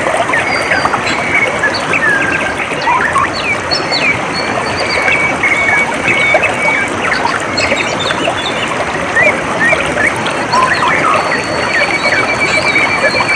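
Water running steadily, with several birds chirping and calling over it; a bird's fast, even trill comes in twice, in the middle and again near the end.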